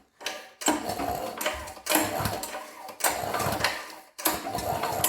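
Recoil starter cord of a Briggs & Stratton 208cc pressure-washer engine pulled about four times, a little over a second apart, cranking the engine without it firing to circulate freshly added oil.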